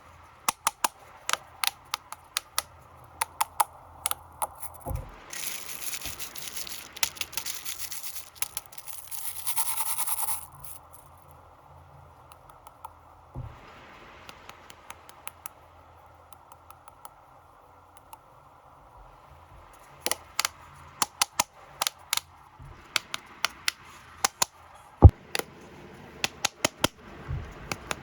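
Plastic snack wrappers crinkling and crackling as they are handled and unwrapped: a run of sharp crackles, a denser rustle from about five to ten seconds in, and more sharp crackles in the last third.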